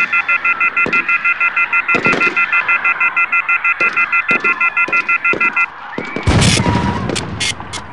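Rapid electronic beeping: a high chord-like beep repeating evenly about seven times a second, which stops a little past halfway. Then comes a loud burst of crackling static noise.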